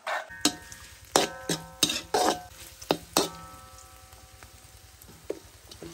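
Chili paste being stir-fried in a large metal wok, with a faint sizzle. A utensil knocks and scrapes against the wok about seven times in the first three and a half seconds, and the wok rings briefly after each knock. It is quieter after that.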